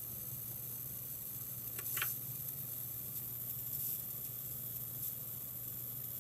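Scythe SPCRN-600 computer power supply making an abnormal noise: a steady, very high-pitched hiss over a low hum, with a short crackle about two seconds in and fainter ones near four and five seconds.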